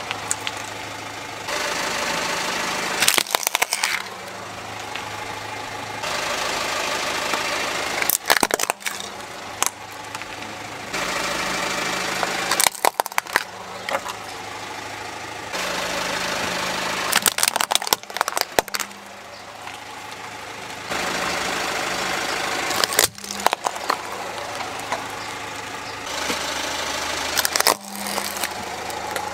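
A car's engine idling while its tyre rolls over small plastic toys and crushes them, with sharp cracks and crunches several times, every few seconds.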